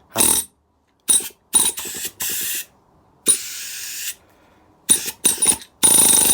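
Stanley pneumatic air hammer (chipping hammer) fired in about seven short blasts of air and hammering, then held running steadily near the end.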